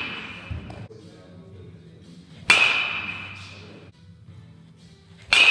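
Metal baseball bat striking pitched balls twice, about three seconds apart: each hit a sharp ping that rings on and dies away over about a second, the second one near the end.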